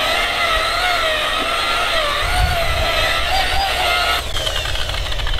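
Wen variable-speed electric rotary polisher running with a wool bonnet, buffing compound into oxidized fiberglass gelcoat. Its motor whine wavers slightly in pitch as it is worked over the hull. About four seconds in it is switched off and the whine falls away as it spins down.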